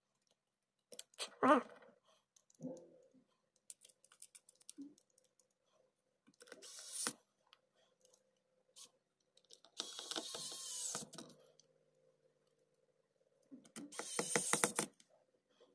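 Pen-style electric precision screwdriver driving screws into a laptop battery, its motor running in three short spells a few seconds apart. Light clicks and taps of small screws and the driver being handled come in between.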